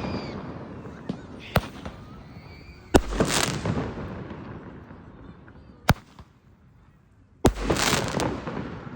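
Fireworks exploding: loud bangs about 3 seconds in and again near the end, each followed by a hissing crackle that fades over a second or two, with sharper single cracks in between.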